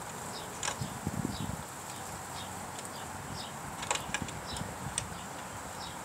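Faint metal clicks and taps as a moped foot peg and its mounting parts are handled and tried in place, with two sharper clicks, one about a second in and one near four seconds. Small high chirps repeat faintly in the background.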